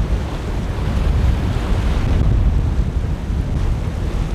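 Strong wind buffeting the microphone in a steady, gusty low rumble, over the wash of breaking surf.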